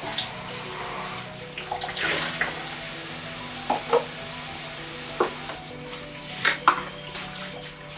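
Washing up under running water: pots and utensils knock and clink against each other and the sink several times, over soft background music with held tones.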